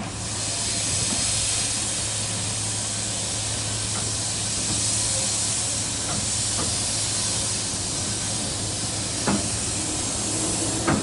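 Bure Valley Railway No. 6 Blickling Hall, a 15-inch gauge steam locomotive, hissing steadily and loudly as steam blows out at its front end. The hiss starts suddenly, with a few light clicks partway through.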